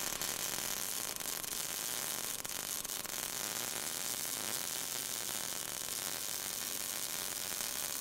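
MIG welding arc crackling and hissing steadily, with scattered faint pops.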